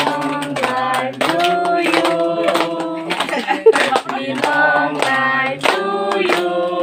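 A group of people singing a birthday song together, with hands clapping steadily in time, about one clap every half second or so.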